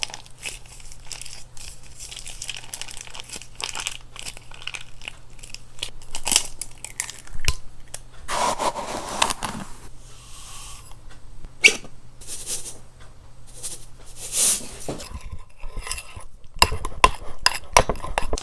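Baking preparation handling noises: crinkling and tearing with scattered sharp clicks and knocks, over a faint low hum that stops about fifteen seconds in.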